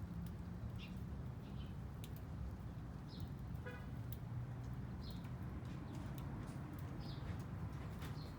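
Small birds giving short, high chirps about once a second over a steady low rumble like distant traffic, with one brief toot a little past the middle.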